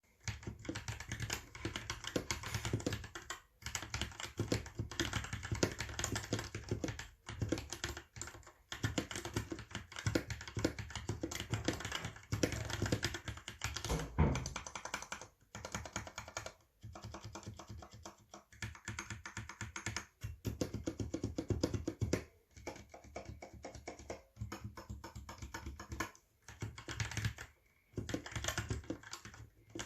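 Continuous typing on a Royal Kludge RK84 mechanical keyboard with stock red linear switches: rapid keystroke clacks in long runs, broken by brief pauses every few seconds. A single louder, deeper thump comes about halfway through.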